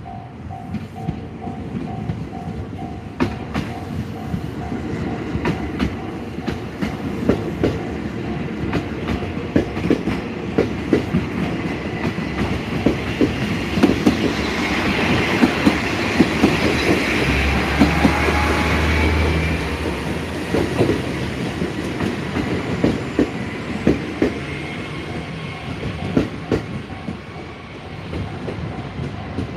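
A train passing over a level crossing, its wheels clacking over the rail joints, loudest about halfway through with a faint wheel squeal. The crossing's warning bell rings in a steady repeating pattern, clearest at the start and near the end.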